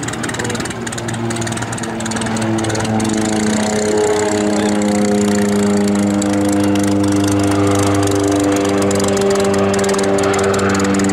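North American Rockwell OV-10B Bronco's twin Garrett T76 turboprops droning in flight, a pitched propeller hum that grows louder about two seconds in and then holds steady.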